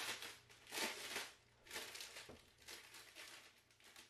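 Clear plastic packaging crinkling and rustling in a few short, soft bursts as thin sheets sealed in plastic sleeves are handled and pulled from the box.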